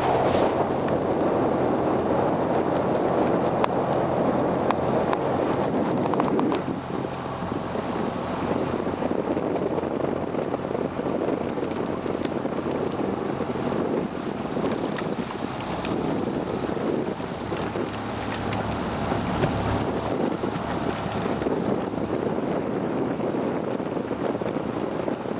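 Wind buffeting the microphone, a steady rushing, a little louder for the first six seconds, over a low steady hum and the wash of open water.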